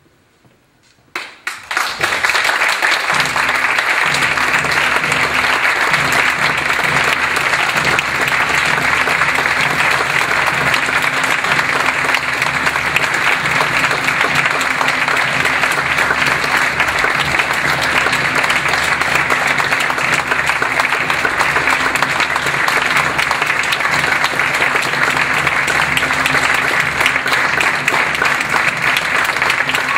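Theatre audience applauding at the end of a play. The applause breaks out suddenly about a second in, after near silence, and then holds steady.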